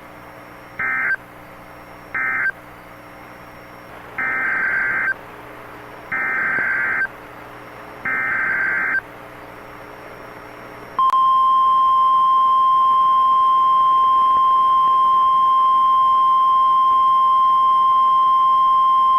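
Emergency Alert System SAME data bursts over NOAA Weather Radio. First come the last two short end-of-message bursts, then three longer warbling header bursts about two seconds apart. About 11 seconds in, the steady single-pitched warning alarm tone starts, marking a new tornado warning alert.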